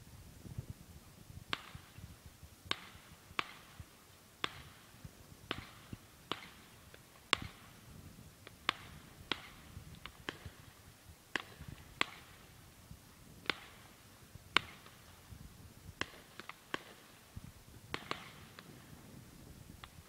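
Distant fireworks going off: a string of sharp bangs and cracks, irregularly spaced at roughly one a second, some trailing off in a short echo.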